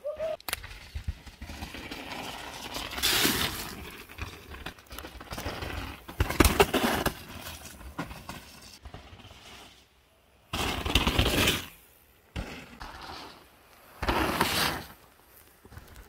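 Downhill mountain bike riding on a muddy trail: a rush of wind and tyre noise with bursts of rattling and clattering over bumps, broken off suddenly a few times.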